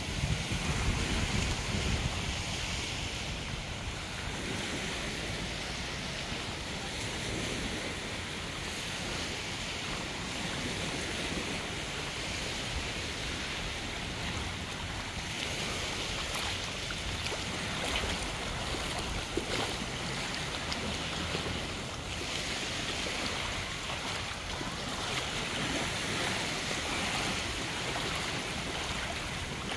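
Small waves washing onto a sandy beach in a steady hiss, with wind rumbling on the microphone, strongest in the first couple of seconds.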